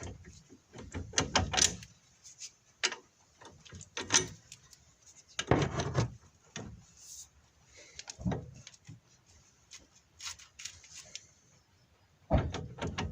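Renault Logan brake caliper rocked back and forth by hand, knocking in irregular clusters of clicks and clunks: the caliper has worked loose, and the owner blames the knock on its worn guide pins.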